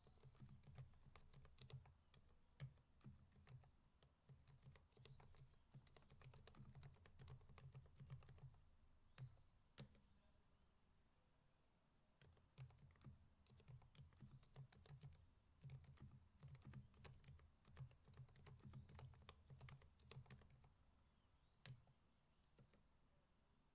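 Typing on a Keychron V5 mechanical keyboard with Kailh 'fried egg' silent switches: quiet, muffled keystrokes with soft low thuds, coming in runs. There is a short lull about ten seconds in, and the keystrokes thin out to a last one near the end.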